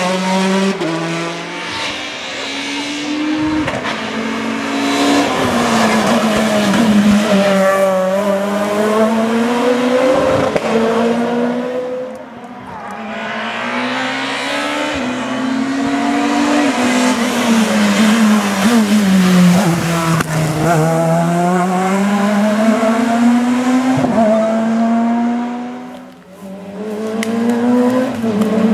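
Rally cars passing one after another, engines revving hard with their pitch rising and falling through gear changes. The sound drops away briefly between cars, about twelve seconds in and again near the end.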